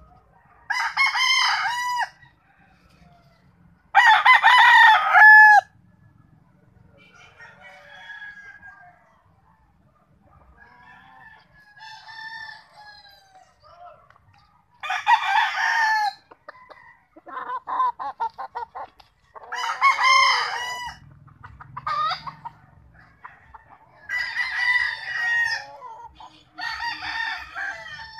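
Gamefowl roosters crowing in turn: about six loud crows of one to two seconds each, with fainter crows from farther birds between them. A run of quick clucks comes about two-thirds of the way through.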